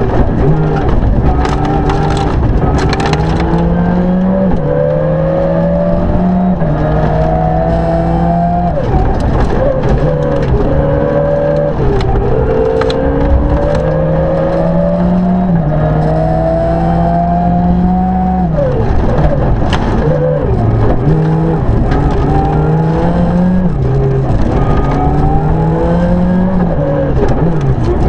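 Rally car engine at full throttle heard from inside the cabin, its pitch climbing and stepping through upshifts, then dropping sharply twice, about nine and eighteen seconds in, as the driver brakes and shifts down before rising again. Sharp clacks cut through in the first few seconds.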